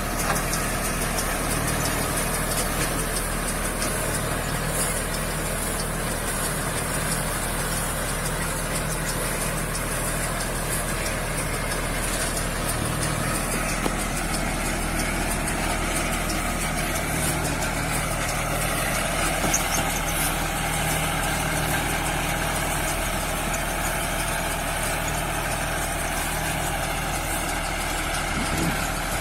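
Tractor engine running steadily, with the clatter of the round straw baler it drives.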